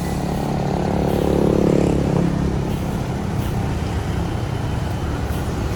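Large tour bus's engine running as the bus moves off slowly to park, a steady low hum that swells about one to two seconds in and then settles.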